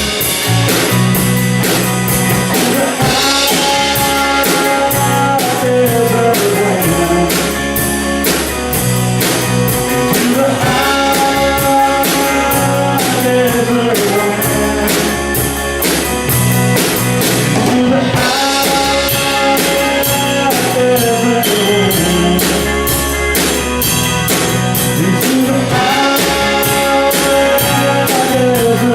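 A band playing live: drum kit keeping a steady beat under guitar and bass, with a melodic line, perhaps horns or voice, repeating in phrases of about eight seconds.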